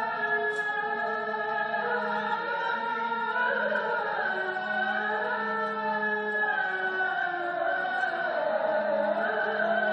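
A voice chanting long, wavering melismatic phrases over a steady low drone that drops out briefly now and then.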